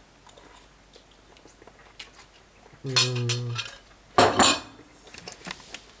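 A metal fork clinking and scraping lightly on a plate and tray while pasta is eaten. A short hummed 'mmm' at one steady pitch comes about three seconds in, and a short loud rush of noise follows just after four seconds.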